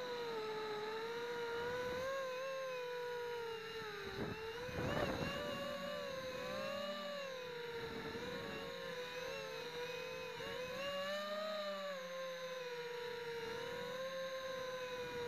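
Brushless motors and propellers of a HobbyKing FPV250 quadcopter, heard from a camera mounted on the quad: a steady whine that wavers up and down in pitch as the throttle changes. A brief rushing noise comes about four seconds in.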